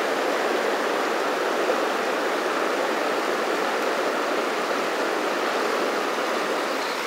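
River water rushing steadily over a shallow, rocky riffle close by.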